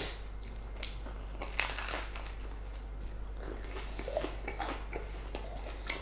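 Someone biting into and chewing a crisp-crusted toasted bagel, a few separate crunches spread through the chewing.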